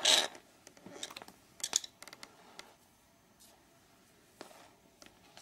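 Soft scuffs, clicks and rustles of a Siamese kitten moving across a hard floor and onto a towel. The loudest is a rustle right at the start, with a cluster of clicks about a second and a half in.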